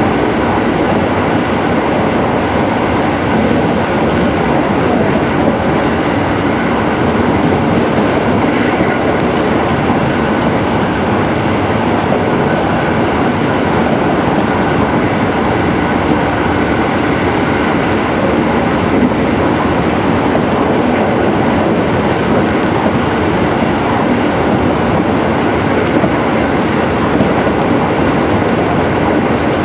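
JR Central 373 series electric train running steadily at speed through a long tunnel, heard from inside the car: a loud, even rumble of wheels on rail and running gear that does not change.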